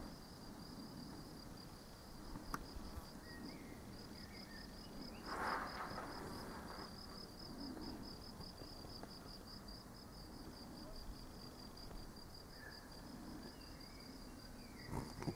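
Faint, steady, high-pitched chirping of a cricket-like insect in a fast even pulse, with a few faint bird chirps and a brief rustle about five seconds in.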